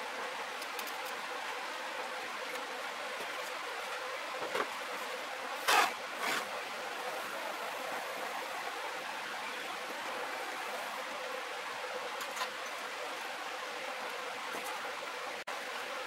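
Propane torch burning with a steady hiss while it heats the wire terminal in a park-light reflector for soldering, with a few light knocks and clicks around the middle, the loudest about six seconds in.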